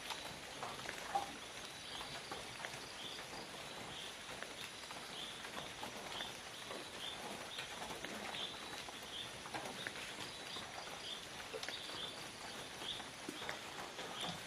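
Tropical forest ambience: a short high chirp repeating about twice a second over a thin, steady high tone, with scattered faint clicks.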